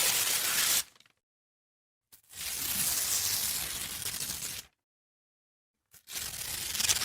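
Paper being torn in three separate rips with silence between them: a short rip at the start, a longer, slower one of about two seconds in the middle, and a third beginning near the end.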